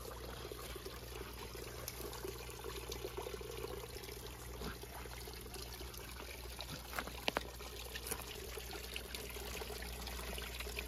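Water running steadily with a trickling, pouring sound. Two faint sharp clicks come about seven seconds in.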